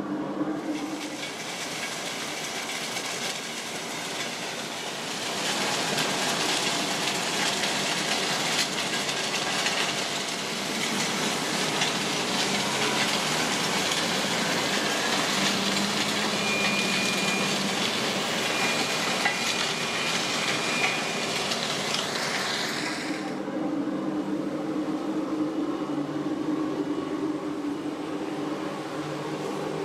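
Steady industrial noise of an aggregate processing plant running: a low drone, with a louder hissing rush that comes in a few seconds in and drops away sharply about three quarters of the way through.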